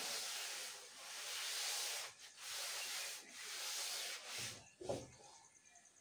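Cloth duster wiping chalk off a blackboard in about four long swipes, each roughly a second long. A short knock follows near the end.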